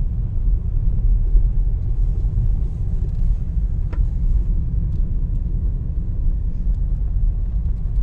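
Steady low rumble inside a car's cabin as it drives slowly along a rough forest dirt track: engine and tyres droning, with a faint knock about four seconds in.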